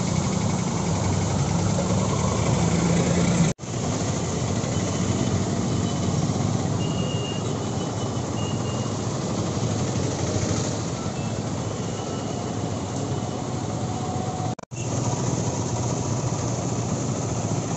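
Road traffic in heavy rain: vehicle engines and tyres on a wet road over a steady hiss of rain. The sound drops out sharply twice, about three and a half seconds in and near the end.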